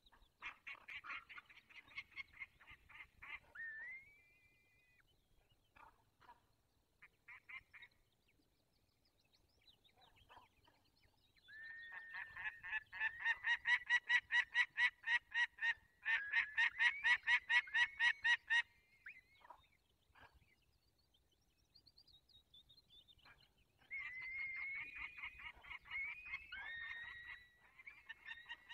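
Peregrine falcons calling: bursts of rapid repeated calls, several a second, loudest in a long run through the middle, with a few rising notes and quieter scattered calls between the bursts.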